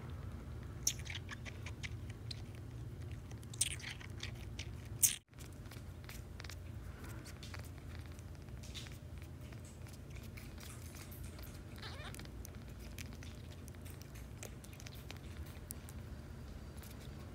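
A young kitten suckling, making faint wet sucking and smacking clicks. First it feeds from a bottle nipple; after a brief break about five seconds in, it comfort-sucks on a person's hand once full. A steady low hum runs underneath.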